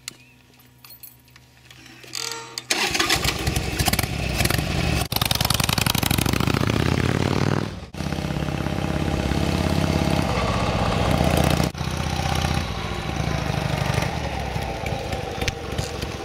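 Harley-Davidson Sportster 883's air-cooled V-twin engine starting after a few faint clicks, then running loudly and revving up with a rising pitch. The sound breaks off abruptly twice and resumes, running on each time.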